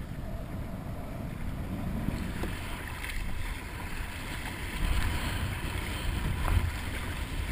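Wind buffeting the microphone over water sloshing and splashing against a kayak's hull as it is paddled through choppy sea. The low wind rumble grows stronger about five seconds in.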